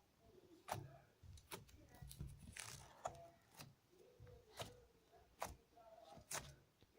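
Faint, irregular clicks and small pops of glitter slime being squeezed and stretched in the hands.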